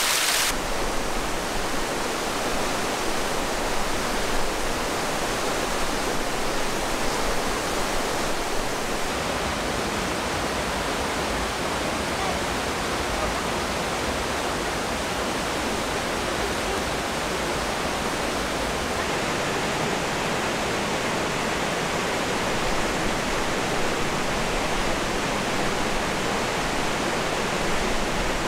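Steady rush of a mountain river and small waterfalls, its low rumble shifting slightly about nine and again about nineteen seconds in.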